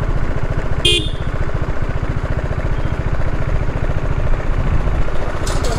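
Motorcycle engine idling at low revs, a steady fast low pulse, as the bike creeps up to a fuel pump. A brief sharp sound comes about a second in.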